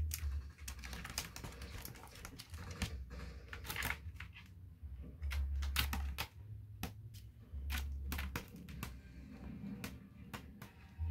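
Cat's claws and paws irregularly clicking, tapping and scratching against a perforated plastic basket, with a few dull low thumps.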